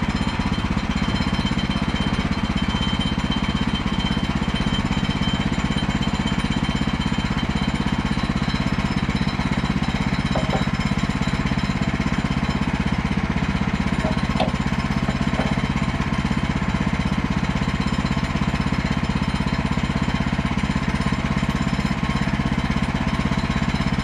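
Woodland Mills HM130 portable bandsaw mill's gas engine running steadily.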